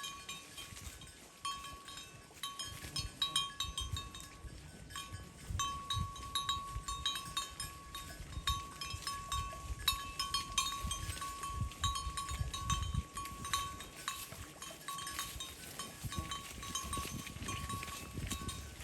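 Cowbells on grazing cattle clanking irregularly as the animals move, a ringing metal tone struck over and over, with soft low thumps underneath.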